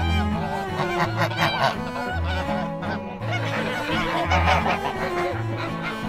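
Domestic geese honking in bursts, with several honks in the first two seconds and more about four seconds in, over background music with a low string bass line.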